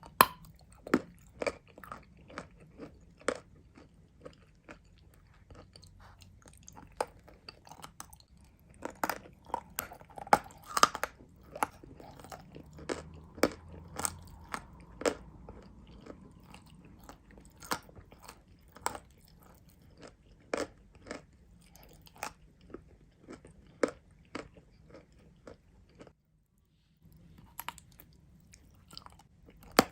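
A person biting and chewing crunchy edible clay (chalk), giving an irregular run of sharp crunches and crackles, with a brief silent gap near the end.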